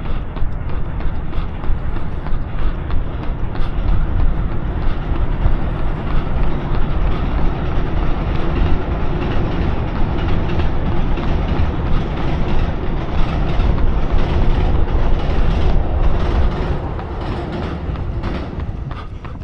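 A runner's footsteps over a loud, steady rumble that fades away about three seconds before the end.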